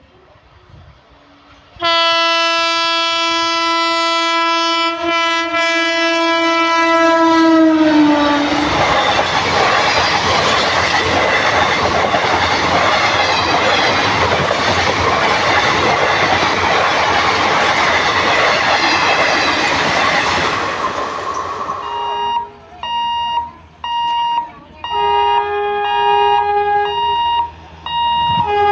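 Locomotive horn of a passing express train: one long blast of about six seconds whose pitch sags as it ends, then the train passing close, a loud rush of wheels on rails with clickety-clack for about twelve seconds. Near the end come several short horn blasts on more than one note.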